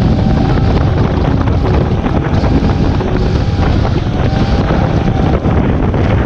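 Wind buffeting the microphone of a camera on a speeding boat, a loud, steady rumble over the rushing wake and spray of a Suzuki outboard-powered boat under way.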